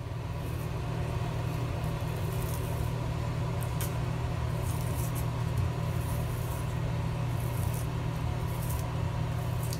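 A steady low hum, with a few faint short scratchy sounds over it.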